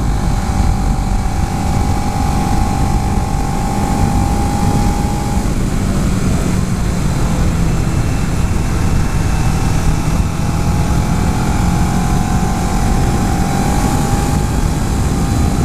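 A 2011 Kawasaki Ninja 650's parallel-twin engine drones at a steady cruise, with heavy wind rush over the microphone; the pitch shifts slightly as the throttle changes.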